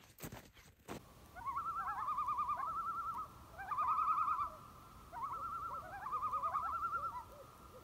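Footsteps crunching on packed snow for about a second, then a rapid, wavering, trilling bird call, heard three times over a faint steady tone.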